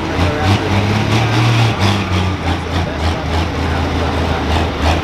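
Heavy diesel engine of a Pro Stock pulling tractor running at low revs, a deep steady note that rises briefly about a second in and then settles back.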